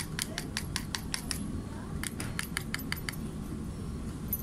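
Gloved hands handling a plastic sample cup and reagent pack: a quick run of light, sharp plastic clicks and taps, about seven a second, that pauses briefly and then starts again.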